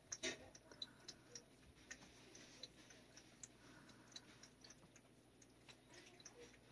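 Near silence with faint, irregular light clicks, a few each second, from a long-handled brush being stroked over a cat's fur.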